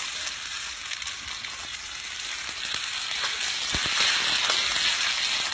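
Food sizzling and crackling in a hot pan, a steady frying hiss that grows louder about three seconds in.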